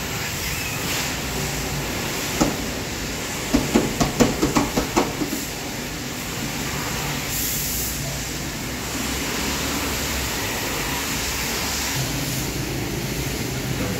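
Steady hiss and rumble of background noise, with one knock and then, about three and a half seconds in, a quick run of about eight sharp knocks over a second and a half.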